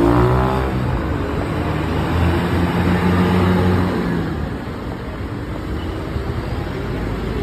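Road vehicle engine running, its pitch sliding down at the start. It holds a steady drone from about two to four seconds in, then fades into general traffic noise.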